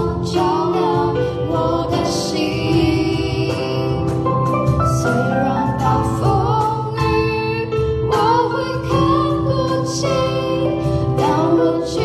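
Female vocals singing a slow song over sustained keyboard chords.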